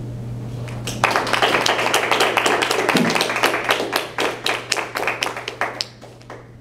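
A small audience applauding. It starts about a second in, thins to a few scattered claps and dies away near the end.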